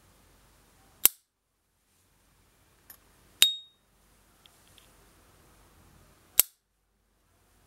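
S. T. Dupont Ligne 2 lighter lid clicking three times, about one, three and a half and six and a half seconds in. The middle click is the loudest and rings briefly on a clear high tone, the lighter's characteristic 'ping'; the other two are short metallic snaps.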